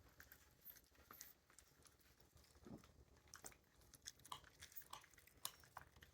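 Faint, irregular small clicks and crunches of Rhodesian Ridgeback puppies chewing their food.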